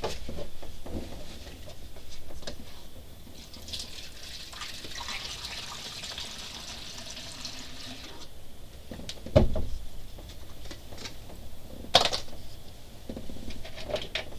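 Liquid rust remover being poured into a spray bottle, a steady pour lasting a few seconds in the middle, followed by two sharp knocks.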